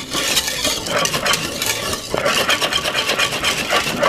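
Wire whisk stirring thick cornmeal porridge in a pot: a steady run of quick scrapes and taps of the whisk against the pot.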